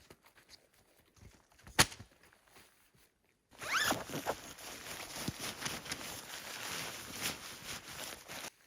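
A zipper is pulled open, and fabric and gear rustle for about five seconds. Before that come faint scattered clicks and one sharp snap about two seconds in.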